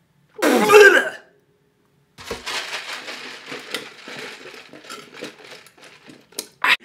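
A short, loud vocal exclamation from a man, then sipping through a straw from a large foam cup: a few seconds of crackly slurping and cup rustling with many small ticks, ending in a sharp slurp.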